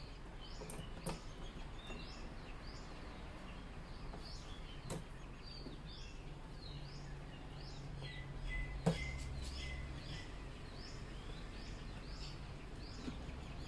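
A bird chirping over and over in a quick series of short, falling chirps. A few sharp taps cut in, the loudest about nine seconds in.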